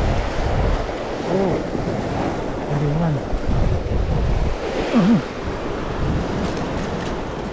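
Surf breaking and washing over a rocky shore, with wind buffeting the microphone. A few short voice sounds come through, around one and a half, three and five seconds in.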